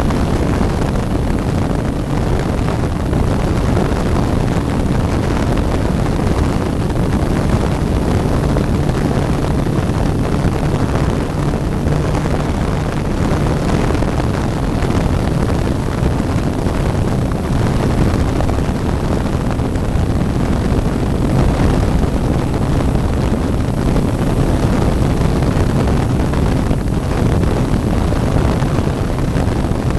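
Radio-controlled model airplane in flight, its motor and propeller running steadily just in front of the onboard microphone, with wind rushing over the mic.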